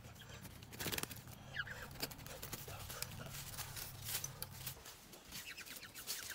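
Irregular crunching and rustling of dry leaf litter and twigs as a person moves through the undergrowth, with a few short high chirps.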